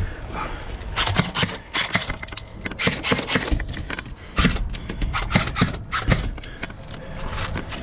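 Footsteps of a player moving quickly on foot, with scuffing and clattering of gear at an uneven pace.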